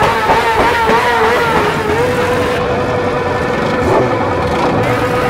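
Motorcycle engine revved hard and held at high revs. The pitch wobbles rapidly at first, then holds steady from about two seconds in.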